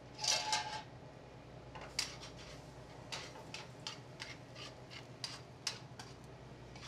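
Metal tongs clicking and scraping against a stainless sauté pan as pasta is tossed in cream sauce, a sharp click every half second or so. A louder metal clatter with a brief ring comes near the start. A steady low hum runs underneath.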